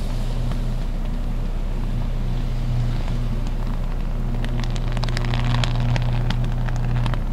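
High-voltage electrical arc at a power substation, buzzing with a loud, steady low hum. From about four and a half seconds in until near the end it crackles and snaps sharply and irregularly.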